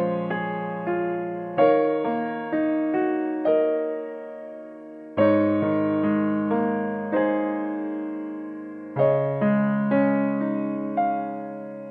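Background music: slow, gentle piano, chords struck every second or so and left to ring and fade, with longer held chords about every four seconds.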